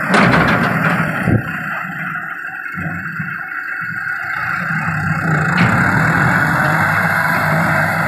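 Diesel farm tractor with a front-end loader running steadily, with a couple of sharp clanks in the first second and a half. The engine note drops for a few seconds, then picks up again from about halfway as the tractor pushes its loader bucket into a pile of wheat straw.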